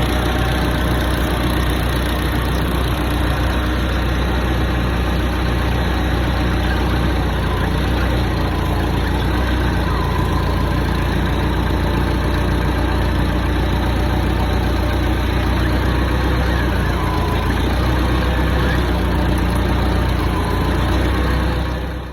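A Hyster forklift's Mazda FE four-cylinder engine idling steadily with an even low hum, running after a cylinder-head job with its valve lash freshly set. The sound cuts off abruptly at the end.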